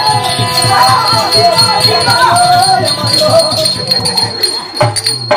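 Therukoothu dance music: a fast, even drum beat under a held drone and a wavering melody, with jingling over it. The music breaks off about five seconds in.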